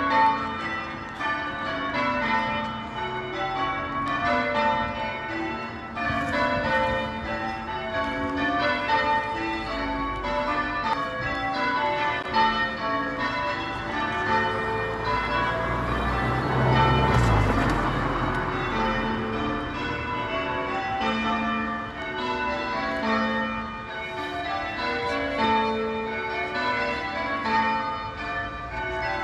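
Church bells ringing in changes: a continuous run of bells struck one after another in shifting order. A rushing noise swells and fades about halfway through.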